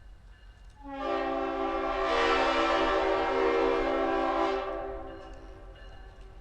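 Conway Scenic Railroad locomotive sounding one long blast on its chime horn, several notes at once, coming in about a second in, growing brighter, and fading away near the end.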